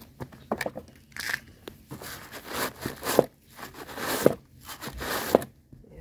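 A boot scrubbed back and forth through a boot scraper's stiff bristle brush: repeated scratchy scrubbing strokes, several ending in a sharp knock, stopping shortly before the end.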